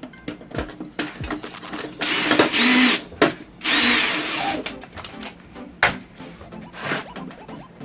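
Cordless electric screwdriver or drill run in two short bursts of about a second each, its motor whine rising and falling, driving or removing screws on the TV's panels, with scattered clicks from handling parts.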